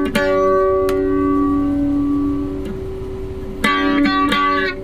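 Electric guitar with EMG active pickups played clean through an amplifier: a chord strummed and left ringing for about three and a half seconds, then a few quick strums near the end.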